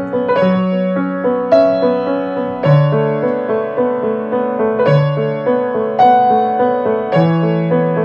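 Solo piano playing a slow original piece: chords struck about once a second over bass notes that change every two seconds or so.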